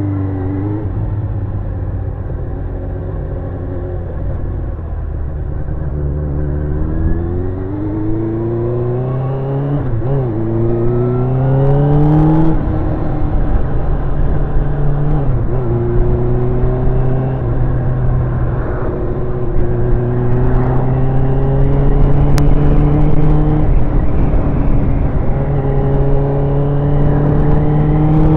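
Sports motorcycle engine with a new exhaust, accelerating away and changing up through the gears: the engine note rises, drops back at each of several gear changes and climbs again. Wind noise runs under it.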